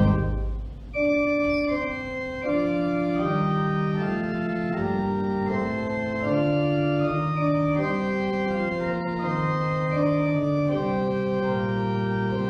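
Organ playing slow, sustained chords and a moving melody; a loud held chord cuts off at the start and a softer passage begins about a second in.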